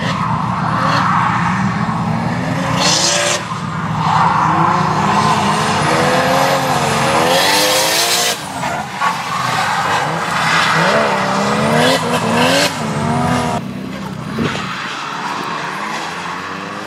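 Toyota JZX100 drift car's engine revving up and down through a drift, mixed with loud bursts of tyre noise on the wet track. About two-thirds of the way in, it gives way to a quieter, more distant engine and tyre noise from a Nissan S13 drifting.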